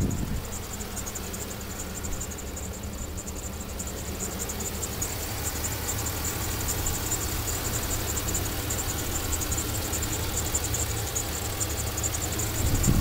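2005 Chevrolet Silverado 2500HD pickup engine idling steadily with its hood open, with a faint, rapid high-pitched ticking over the low engine note.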